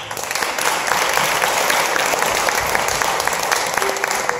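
Audience applauding, many people clapping at once; the applause swells over the first second and then holds steady.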